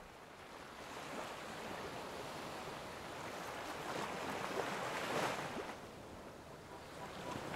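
Faint wash of sea waves, swelling a little about four to five seconds in and easing off near the end.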